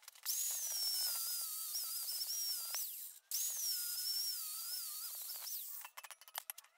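Angle grinder cutting down a welded-on mild-steel tab on a Ford 8.8 rear axle's cast center section, its whine wavering in pitch as the disc bites. It stops briefly about three seconds in, then grinds again until near the end, followed by a few light knocks.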